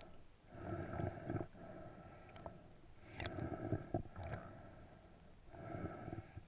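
Muffled underwater water noise picked up through a GoPro's waterproof housing, swelling and fading about every two and a half seconds, with a few short sharp clicks.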